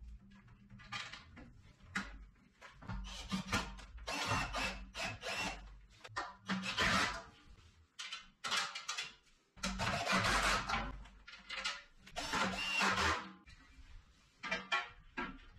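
Sheet-steel legs and braces of a bandsaw stand being handled and fitted together: scraping, rubbing and knocking of metal parts in irregular bursts of about a second each.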